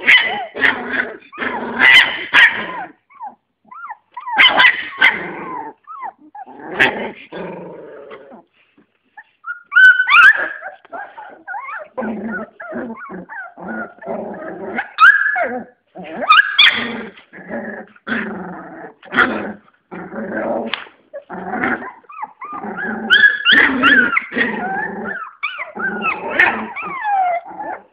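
Young American Staffordshire terrier puppies, about 25 days old, growling and yipping in short, repeated bursts while play-fighting, with a brief pause about a third of the way through.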